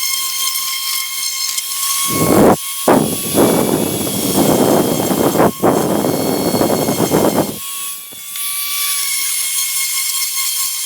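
Power sander running with a steady high whine, and a louder coarse rasp from about two seconds in until nearly eight seconds while it is pressed to the wood, broken by a brief pause near the start of the rasp.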